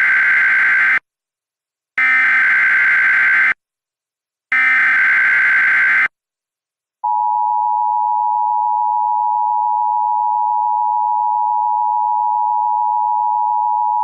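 Emergency Alert System tones: the end of one SAME header burst of rapid warbling digital data, then two more identical bursts of about a second and a half each, with a pause between them. About seven seconds in, after a moment of silence, the steady two-tone EAS attention signal begins and holds.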